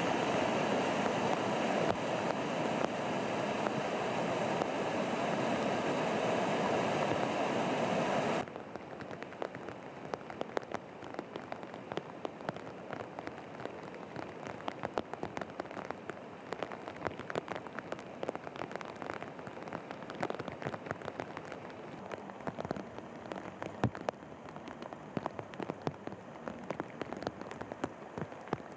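Rushing floodwater, a loud steady wash, which cuts off sharply about eight seconds in. After that, steady rain falls on a flooded street, with many individual drops clicking close by.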